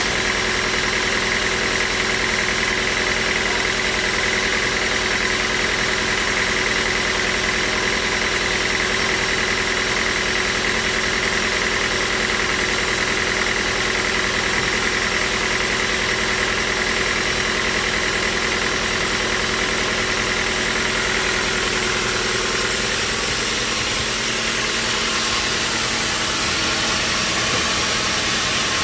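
Sawmill machinery running steadily, with a high whine over it that fades about three-quarters of the way through.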